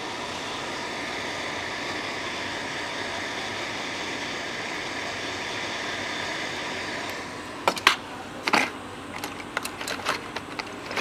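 Hot-air rework station blowing a steady hiss onto a phone motherboard to desolder the power IC, cutting off about seven seconds in. A few sharp clicks and taps follow.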